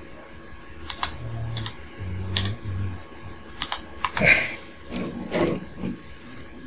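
Key clicks from typing a name into a grandMA1 lighting console: a handful of separate presses, then a louder knock about four seconds in, as the name dialog is confirmed.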